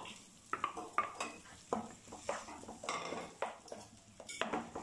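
A spatula scraping mashed roasted brinjal off a plate into a kadhai of tomato masala, then stirring it in, with irregular scrapes and knocks against the pan.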